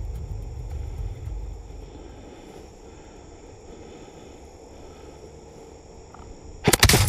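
Grass stems brushing and rustling against a camera held low in tall grass. Handling rumble fades after about two seconds, then a loud dense crackle of about half a second comes near the end as the stems sweep across the microphone.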